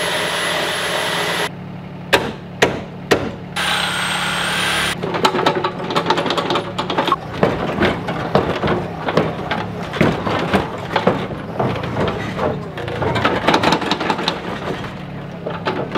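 A steady engine hum under two bursts of hiss, then a dense, irregular run of metallic knocks, clanks and crunching as the stripped minivan's body is worked on with the excavator beside it.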